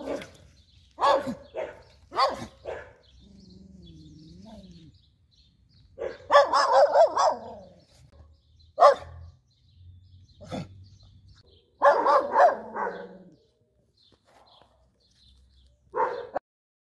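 A schnauzer barking in short bursts of several barks at a time, with pauses between them.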